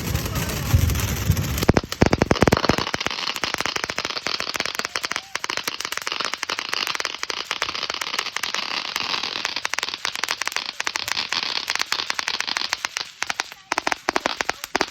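TNT Atomic Salsa firework fountain spraying and crackling: a dense run of rapid crackles over a hiss, starting about two seconds in and thinning out near the end.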